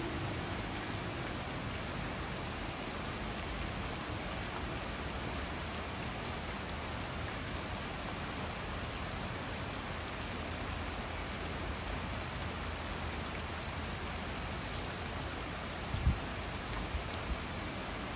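Steady rain falling on trees and a wet street, an even hiss without a break. A single sharp low thump about two seconds before the end, followed by a couple of smaller knocks.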